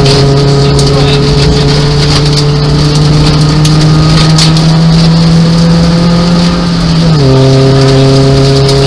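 Nissan Micra 1.0-litre rally car engine heard from inside the cabin, accelerating with revs climbing slowly, then dropping sharply at an upshift about seven seconds in. Loose gravel clicks and rattles against the underside of the car throughout.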